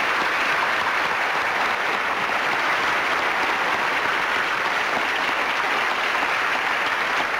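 A studio audience applauding steadily.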